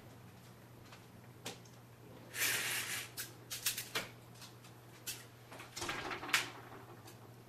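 A person coming into a room through a door: a rustling burst about two and a half seconds in, then scattered clicks and knocks, including a wall light switch flicked about four seconds in, and a sharp click near the end, all over a low steady hum.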